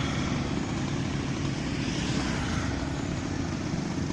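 Engine running steadily with a low, even drone.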